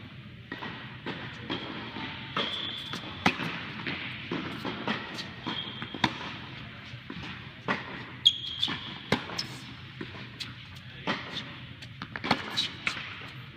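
Tennis balls struck by rackets and bouncing on an indoor hard court, sharp irregular knocks about a second apart ringing in a large tennis hall, with several short high shoe squeaks on the court surface.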